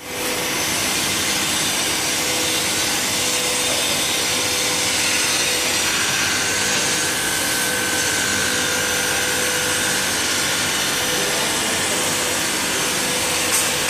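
Glass V-groove grinding machine running steadily, its wheel grinding a groove into a sheet of glass pushed across it by hand: a constant hum under a grinding hiss, with a high whine joining about six seconds in and fading near ten seconds.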